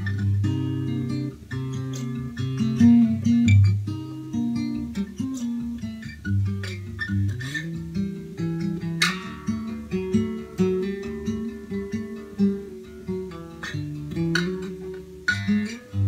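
1979 Sigma DM18 solid spruce-top steel-string dreadnought acoustic guitar, fingerpicked: low bass notes under a steady stream of higher picked melody notes, recorded through a phone microphone.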